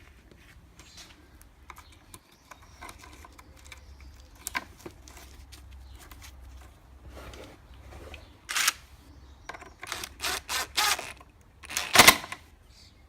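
Hand tool clicking while screws are driven back into plastic trim in a car's front wheel arch. A few faint taps come first, then a run of sharp clicks from about eight seconds in, loudest near the end.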